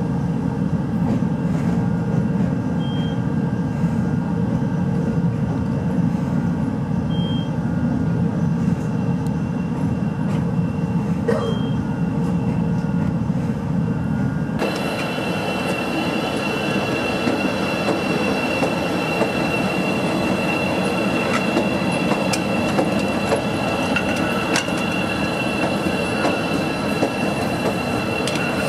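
CTA 'L' train running on the elevated track, heard from inside the car as a steady low rumble with a short high beep about every four seconds. About halfway through it switches to a CTA 5000-series train on the elevated structure heard from trackside, its wheels squealing with steady high tones.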